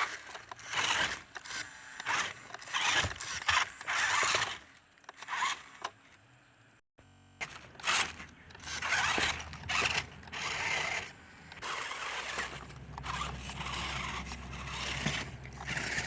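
Mini 4WD RC truck driving in short, uneven spurts, its running gear and wheels scraping over rough ground.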